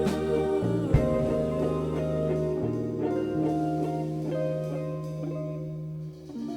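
Live rock band playing an instrumental passage with no singing: electric guitars ringing out held chords over a sustained bass note, with drum hits about a second in. The chords gradually thin and decay, and a fresh chord is struck near the end.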